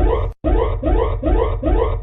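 Electronic emergency alert alarm tone: a fast sweeping pitch that repeats about four times a second over a low hum, cutting out completely for an instant about a third of a second in.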